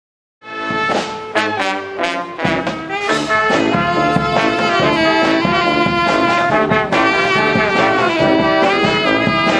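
Street brass band of trumpets and saxophones playing. It comes in about half a second in with short, punchy chords, then settles into held melody lines.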